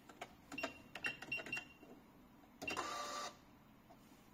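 Keys of a 686A electronic cash register being pressed, each press a click with a short high beep, about five in quick succession. About two and a half seconds in, its built-in receipt printer runs for under a second, printing and feeding out a receipt.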